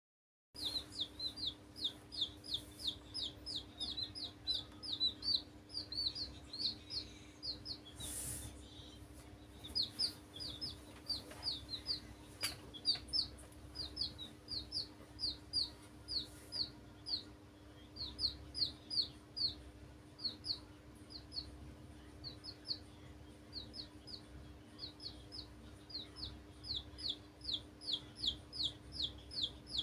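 Young domestic chicks peeping: rapid runs of short, high, falling peeps, several a second, broken by brief pauses.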